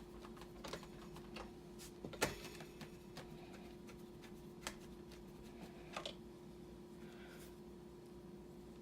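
Faint, scattered clicks and taps of a magnetic screwdriver and small screws against a deadbolt's metal mounting plate as the screws are driven in.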